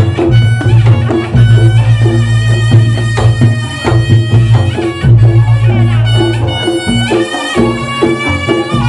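Reog Ponorogo gamelan music: kendang drumming drives a dense, steady beat under a held, reedy wind melody and a deep, pulsing low tone.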